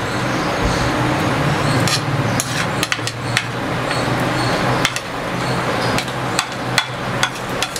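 Metal spoon tapping and scraping on a ceramic plate and the rim of a blender jar as mango slices are spooned in: a string of irregular sharp clicks over a steady low hum.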